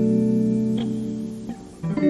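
Background music: sustained guitar notes ringing and fading out, with a new chord struck right at the end.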